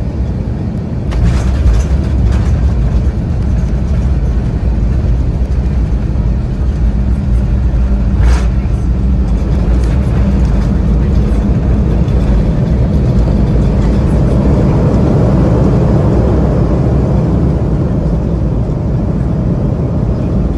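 Embraer E190 airliner touching down and rolling out, heard from a cabin seat over the wing: a jolt about a second in, then a loud, steady low rumble of the wheels on the runway under the noise of its CF34 turbofan engines. There is another sharp knock about eight seconds in, and a hiss swells in the second half as the jet slows.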